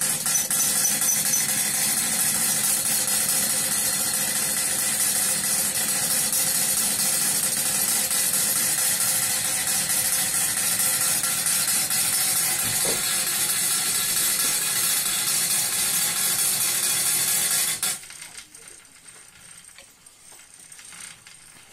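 Wilesco live-steam model engine running, a steady loud hiss of steam with a light mechanical rattle. The sound drops suddenly to much quieter near the end.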